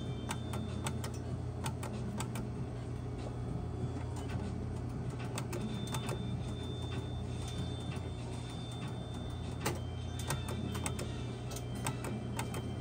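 A Pennsylvania skill game machine spinning its reels: scattered clicks and ticks over a steady low hum, with a thin high electronic tone held for a few seconds in the middle.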